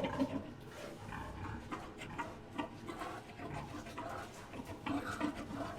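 Wild boar grunting and huffing in short, uneven puffs, agitated at being kept away from a sow.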